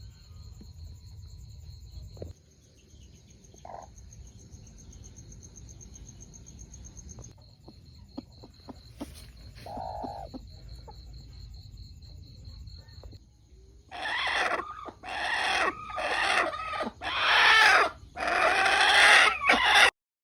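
A steady, high-pitched insect trill runs through the first two-thirds. About two-thirds of the way in, a chicken calls loudly about five times in quick succession, the last call the longest.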